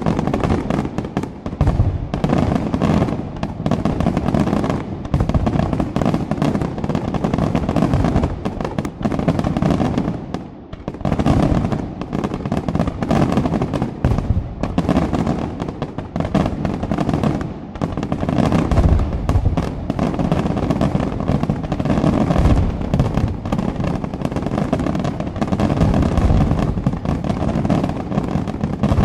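Aerial fireworks shells bursting in a dense, rapid barrage, bangs overlapping one another with little gap between them, easing briefly about ten seconds in before picking up again.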